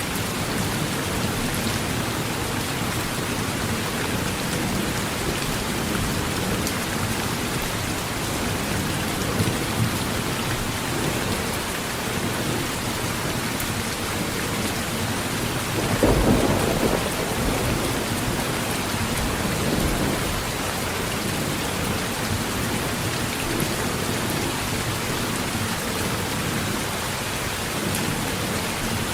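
Heavy rain falling steadily on a tin roof, with a roll of thunder about halfway through.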